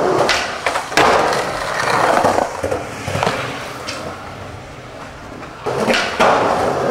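Skateboard wheels rolling over concrete, with several sharp clacks of the board slapping the pavement from backside flip attempts that aren't landed. The rolling dies down in the middle and picks up again near the end.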